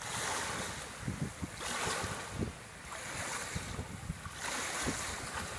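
Fast-running floodwater rushing and splashing along a grassy riverbank, swelling and easing in surges. Wind buffets the microphone with low thumps.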